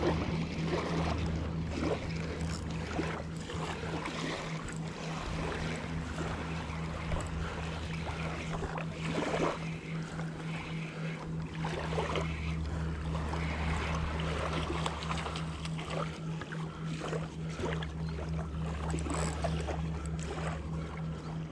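Spinning reel cranked steadily during a metal-jig retrieve, giving an evenly pulsing low hum, with wind and rod-handling noise on the microphone.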